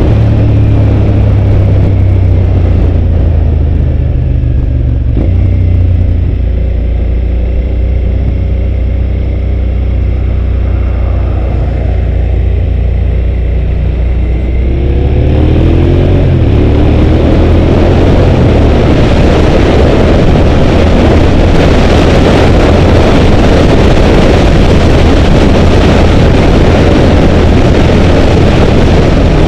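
2005 Suzuki SV650's V-twin engine running under way, with its revs rising about halfway through as the bike accelerates. Wind rushing over the microphone grows loud with the speed.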